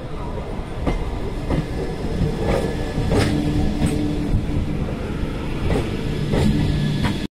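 Indian Railways passenger train coaches passing close by: a steady rumble with the wheels clacking over rail joints in irregular sharp knocks. The sound cuts off suddenly at the very end.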